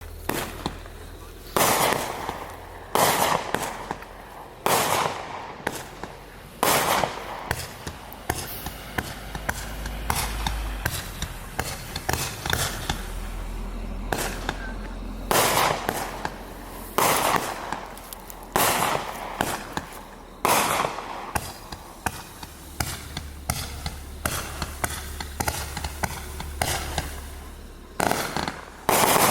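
A 32-shot consumer firework cake firing, its tubes going off one after another as sharp launch bangs a second or two apart. Many smaller pops and crackling fill the gaps between the louder shots.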